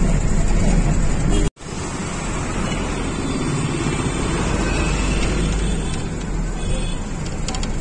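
Steady motor-vehicle rumble and road noise, cut off for an instant by a sharp dropout about a second and a half in.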